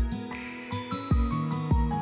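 Instrumental background music: held notes over a steady beat of deep drum thumps.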